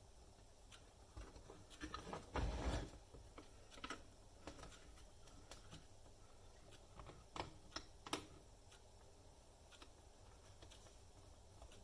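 Light, scattered clicks and taps of small parts and wires being handled, with a louder rustling knock about two and a half seconds in and a few sharper clicks near eight seconds.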